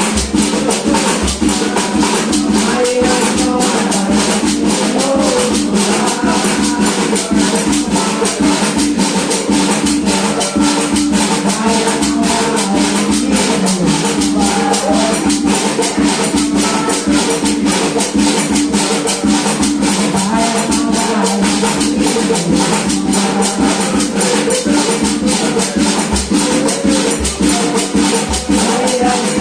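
Terecô doutrina music: singing over a fast, steady shaking of maracas, with a drum beating underneath.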